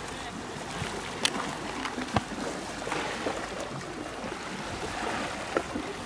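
Steady wash of sea surf against a rocky shore, with a couple of sharp clicks about one and two seconds in.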